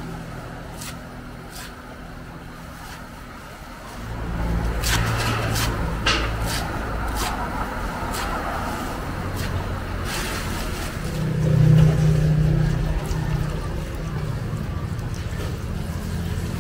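Cleaver chopping bundled water spinach stems on a wooden chopping board, a sharp knock with each stroke about once or twice a second. A motor vehicle's engine rumbles in the background, swelling about three-quarters of the way through.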